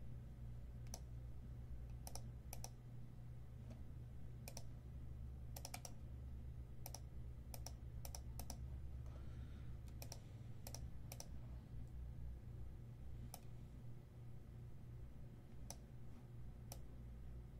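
Faint, scattered clicks of a computer mouse and keyboard, some single and some in quick pairs, over a low steady hum.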